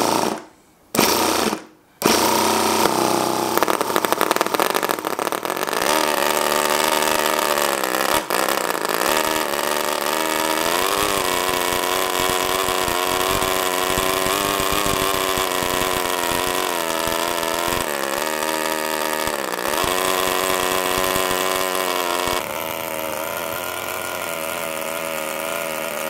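NR-200 miniature two-cylinder four-stroke gasoline engine running at high revs with a buzzing note like a pissed-off weed whacker. Two short bursts come first, then it catches about two seconds in and keeps running, its revs rising and falling at times.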